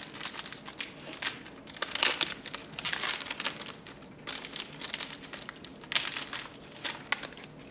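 Crinkling and crackling of a trading-card pack's wrapper as it is opened and handled, in irregular bursts that thin out near the end.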